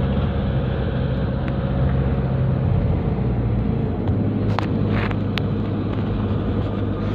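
Inside the cabin of a moving Nissan NV350 van: a steady low drone of engine and road noise, heard while listening for a lingering abnormal hum. A few sharp clicks come about four and a half to five and a half seconds in.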